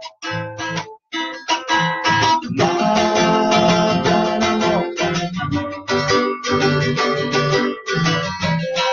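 A man chanting a devotional mantra in a sung melody, accompanied by a strummed acoustic guitar.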